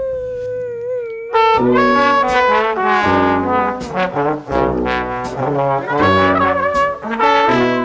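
Brass-band music, trumpets and trombone playing short punchy phrases over drum hits, starting about a second in. It follows a drawn-out crying wail that is held at the very start.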